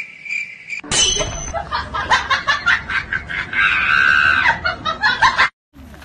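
A steady high ringing tone for about the first second, then several seconds of loud, choppy laughter in quick pulses, which stops abruptly just before the cut.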